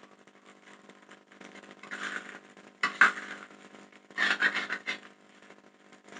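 Metal spatula stirring and scraping fried rice in a wok, in three bursts, the one about three seconds in the loudest, over a steady low hum.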